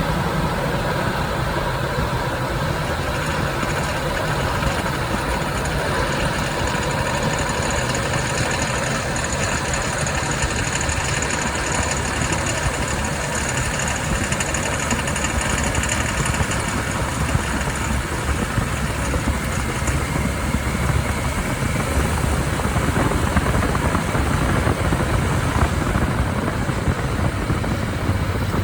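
Jeep Wrangler JL engine pulling at low speed under light throttle, with the steady running noise the owner hears when climbing a hill at 20–40 mph or easing up to speed; its cause is undiagnosed.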